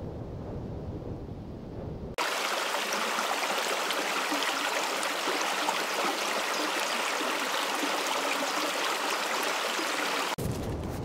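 A low rumble, then about two seconds in, the steady hiss of a fast river rushing over rocks in shallow rapids. The water cuts off abruptly near the end.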